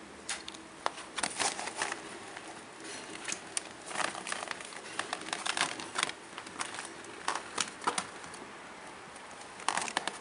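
Irregular crinkling and crackling of plastic, coming in short clusters of sharp crackles.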